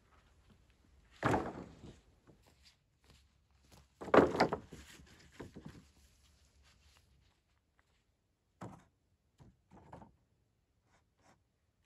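Dry pine poles knocking against each other and the ground as they are handled and set down: two heavy wooden knocks with short rattling tails about a second and four seconds in, then a few lighter knocks near the end.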